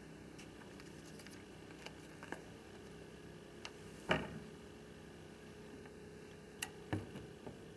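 Foot-pedal-operated foil-welding tongs (KOPP SZ) handled while a plastic bag is clamped between the jaws for sealing. There are a few light clicks, one sharp knock about four seconds in, and a short cluster of clicks and knocks near the end, over a steady low hum.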